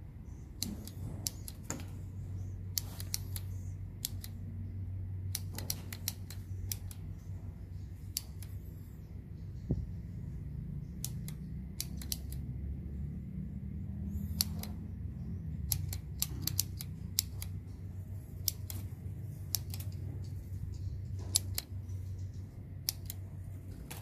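Sharp clicks, often two to four in quick succession, coming at irregular intervals over a low steady hum.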